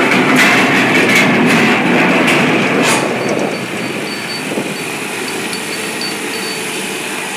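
Forklift engines running under load while carrying a long steel plate, with the steel rattling and clanking in the first three seconds. After that the engine noise is steadier, with faint high intermittent beeps.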